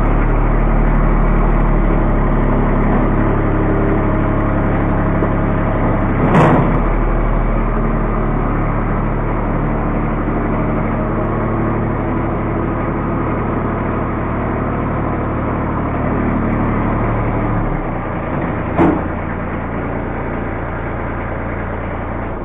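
Kubota 2320 compact tractor's three-cylinder diesel engine running steadily, its note changing about three quarters of the way through. There are two sharp knocks, one about a third of the way in and one shortly after the note changes.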